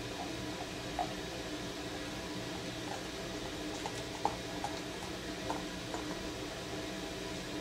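Homebrewed wheat beer (a Belgian-style wit) pouring from a swing-top glass bottle into a tulip glass, a steady stream filling the glass as the foamy head builds, with a few short faint glugs along the way.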